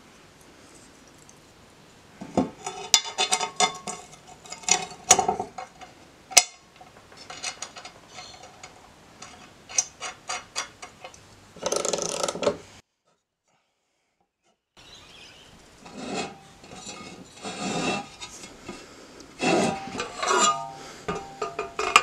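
Steel mower blades, bolts and a blade disc clinking and scraping as they are handled, with a socket ratchet working the blade bolts, irregular clicks and clatter throughout. The sound drops out for about two seconds midway.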